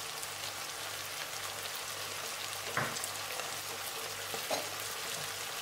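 Chicken pieces frying in oil in a non-stick pan: a steady sizzle, with a brief knock about three seconds in and a fainter one near the end.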